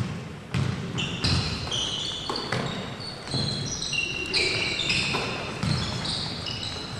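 A basketball bouncing on a wooden sports-hall floor as it is dribbled, with basketball shoes squeaking in short high-pitched chirps as players cut and stop.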